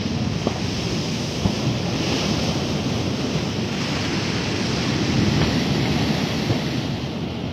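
Steady rushing of wind and sea surf, with wind buffeting the microphone and a faint click or two.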